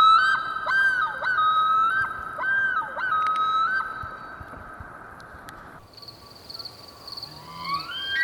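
A common loon calling in a run of repeated rising-and-falling phrases, which stops abruptly about two thirds of the way through. Near the end a bull elk begins to bugle, a whistle gliding upward.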